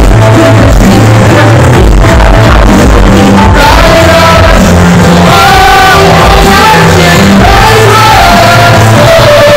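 Loud live pop music: a singer's voice through a microphone over a backing track with heavy bass.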